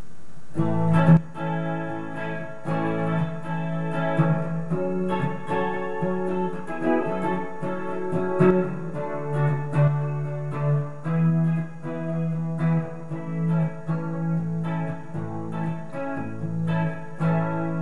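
Fender Player Telecaster electric guitar played through its bridge pickup, a Noiseless single-coil. Picked notes and chords start about half a second in and go on steadily.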